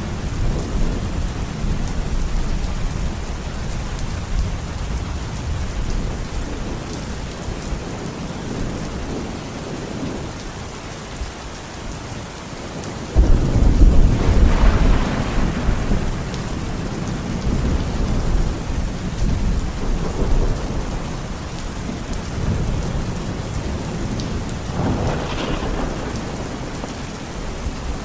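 Steady rain with rolling thunder in a thunderstorm. Thunder rumbles at the start and fades, then a loud clap breaks about halfway through and rumbles on, with another roll of thunder near the end.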